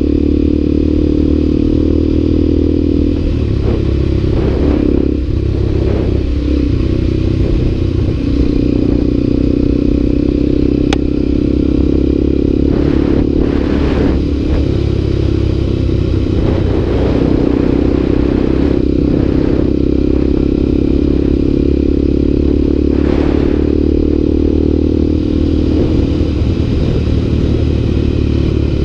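Motorcycle engine running steadily at cruising speed, recorded from a camera mounted on the bike. A few brief knocks and rattles come from bumps on the dirt road.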